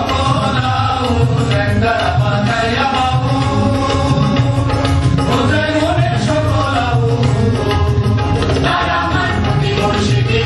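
Traditional Bangladeshi folk music playing steadily, with a hand-drum rhythm under a wavering melody line.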